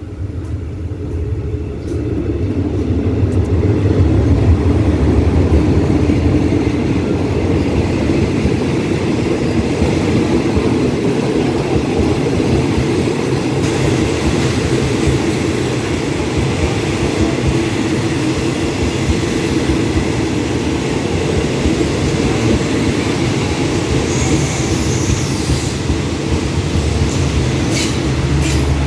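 Passenger train of coaches rolling slowly into the station alongside the platform, with a steady heavy rumble of wheels on rail that swells up over the first few seconds. Near the end a high squeal and a few sharp clicks come in as the train slows to stop.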